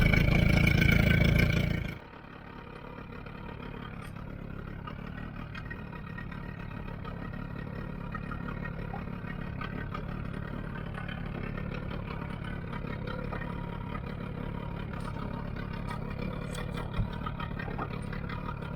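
Boat engine running: loud for about two seconds, then cut off abruptly, leaving a steady, quieter low engine hum.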